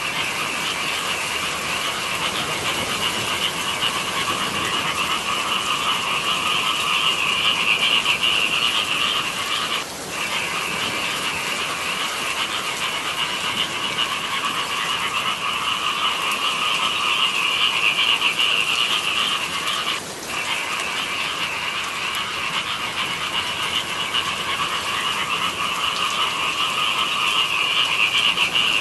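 A dense chorus of many frogs calling without pause, in a higher and a lower layer of calls, easing off for a moment about ten and again about twenty seconds in.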